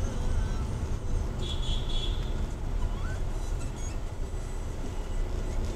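Low, steady engine and road rumble heard inside a Hyundai Creta's cabin through a dashcam microphone as the car drives slowly in traffic. A brief high-pitched sound comes about one and a half seconds in.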